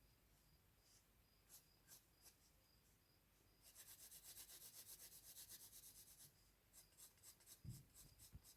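Drawing tool scratching on paper. A few separate strokes, then a quick run of back-and-forth strokes, about eight a second, for two or three seconds, then a few single strokes again.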